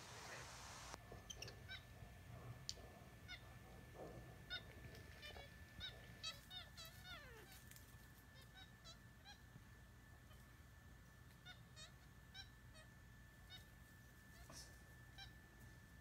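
Faint, repeated short high chirping calls, some coming in quick runs and one sliding down in pitch, over a thin steady tone that sets in about a second in.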